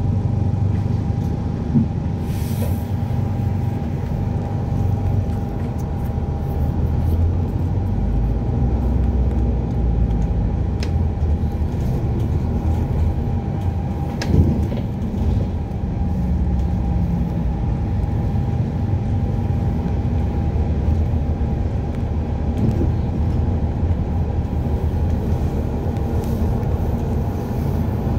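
Alexander Dennis Enviro400 hybrid double-decker bus heard from on board while driving: a steady low rumble of drivetrain and road noise with a thin steady whine over it. Now and then a knock or rattle comes through, the loudest about halfway through.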